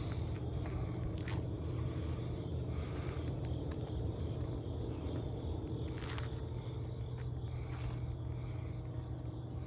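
A steady low mechanical hum, like a motor running at even speed, with a few light clicks and faint high chirps scattered through it.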